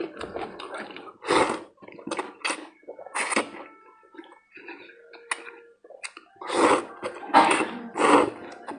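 A person slurping thick noodles, several wet sucking slurps in a row, the longest and loudest near the end.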